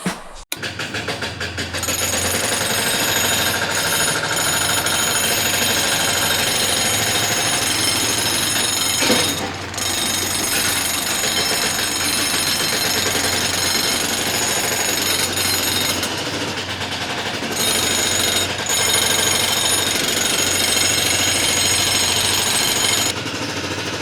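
A small electric motor driving a miniature machine, running with a fast, steady rattling buzz and a high whine. It dips briefly about ten seconds in.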